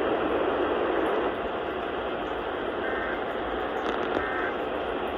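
Weather radio static: a steady hiss of noise with a few faint short beeps on top.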